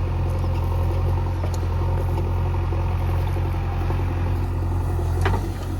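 Heavy diesel engine running steadily at a low, even speed, with a brief knock about five seconds in.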